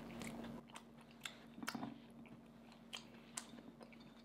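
Faint eating sounds of someone eating tangyuan (glutinous rice balls): soft chewing with a scattering of small clicks, over a steady low hum.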